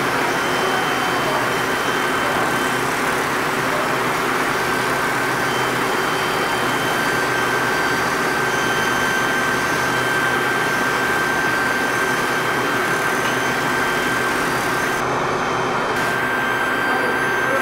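Steady roar of foundry machinery and ventilation, with a constant high whine running through it.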